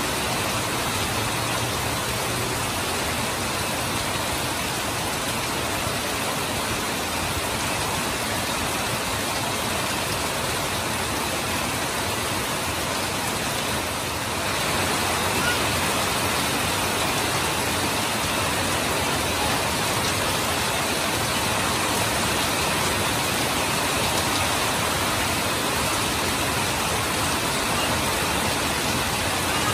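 Heavy rain falling steadily, with water streaming off a roof edge, a dense even hiss. It dips briefly about halfway through and then comes back slightly louder.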